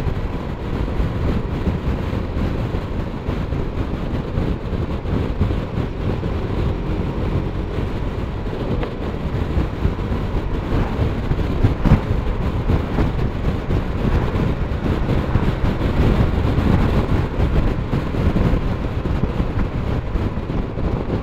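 BMW R1200RT motorcycle ridden at speed: a steady rush of wind and road noise, strongest in the low range, with one brief knock about twelve seconds in.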